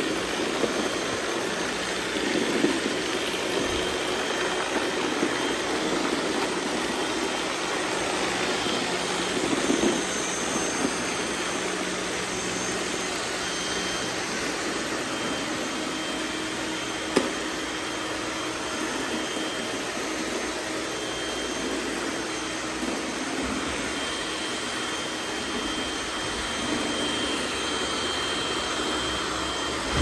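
Robot vacuums running on a concrete floor, a steady whir of suction fans and brushes with a faint high whine. A few sharp knocks, the loudest about halfway through.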